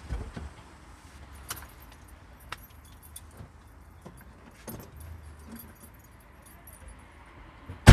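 Light metallic jingling and scattered clicks of small handled metal objects, ending in one loud thump right at the end.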